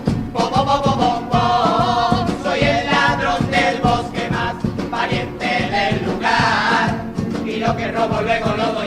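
Carnival chirigota group singing in chorus, with a steady percussion beat under the voices.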